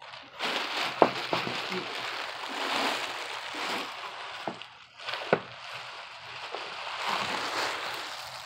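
Clear plastic wrapping around a gown rustling and crinkling as it is handled, with several sharp crackles.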